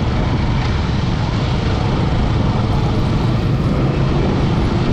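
Motorcycle riding along at steady speed: its engine running under a loud, even rush of wind noise on the rider's microphone.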